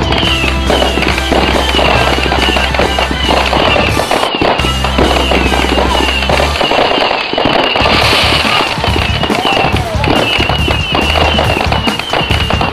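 Aerial fireworks bursting, with dense bangs and crackle, under a music track with a sustained bass line.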